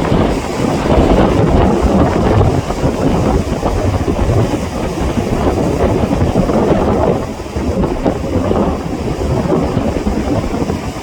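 Sea waves surging and breaking on the shore, a continuous loud wash with a heavy low rumble, easing briefly a little past the middle before building again. Wind buffets the microphone.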